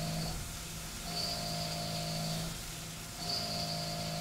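CNC mill roughing Inconel 625 with a Kennametal HARVI III four-flute end mill, the cut's steady whine coming and going in a regular cycle about every two seconds as the cutter engages and leaves the material on each pass.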